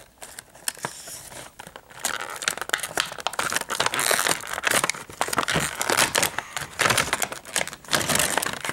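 Clear plastic blister pack crinkling and crackling as it is peeled and pulled away from its cardboard backing, busier and louder from about two seconds in.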